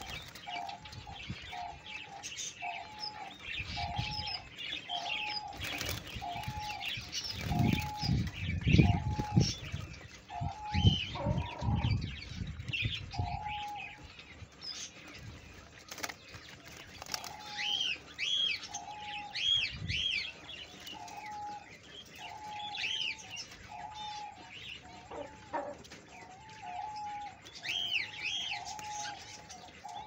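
Diamond dove cooing, a short low coo repeated about once a second, pausing for a few seconds in the middle. Wings flap loudly around a third of the way in, and other small birds give short high chirps, more of them in the second half.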